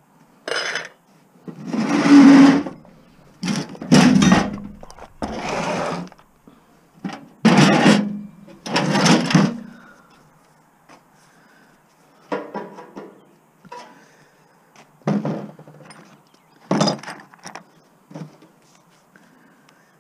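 Irregular clanking and scraping of metal parts as a stainless steel barbecue is taken apart: a string of short, uneven bursts with quiet gaps between them.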